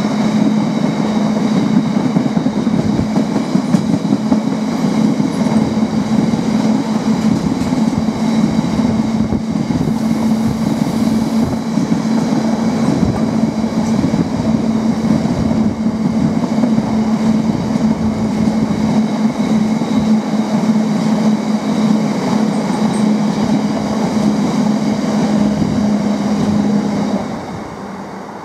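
A freight train's covered hopper wagons rumbling and clattering over the rails as they pass, with a steady low hum throughout. The sound drops away near the end as the last wagon clears.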